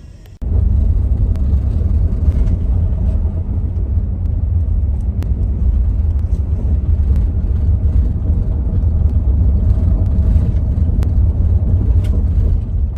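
Loud, steady low rumble that starts abruptly about half a second in and keeps an even level throughout.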